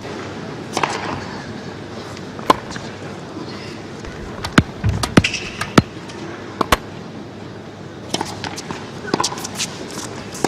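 Tennis ball impacts: sharp pops, one about two and a half seconds in and a cluster of four between about four and a half and seven seconds, with lighter ticks near the start and about eight to nine seconds in. Underneath runs a steady stadium crowd ambience.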